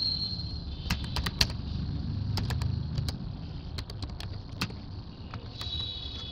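Slow, irregular keystrokes on a computer keyboard, a few sharp clicks at a time, over a steady low background rumble.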